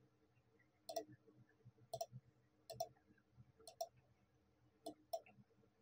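Computer mouse button clicking five times, about once a second, each click a press and release heard as two quick ticks. The room is otherwise near silent.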